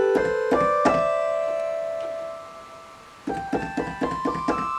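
Sequential OB-6 analog synthesizer played on its keyboard with oscillator 1 and the sub-octave on: a few quick rising notes that ring and fade out, then after about three seconds a fast run of short notes.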